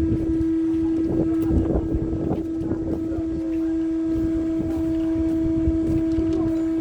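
Steady machinery hum with one constant tone aboard a cargo ship, with wind buffeting the microphone.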